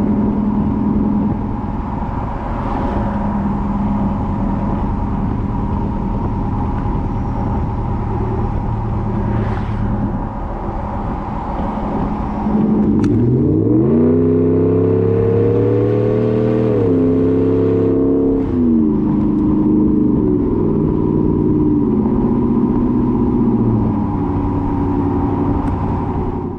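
Ram 1500's 5.7-litre Hemi V8 through a Borla S-Type cat-back exhaust while driving, picked up down by the rear tyre with tyre and road noise. The engine cruises steadily, then about 13 seconds in it accelerates with a rising pitch and steps down in pitch twice as the transmission shifts up.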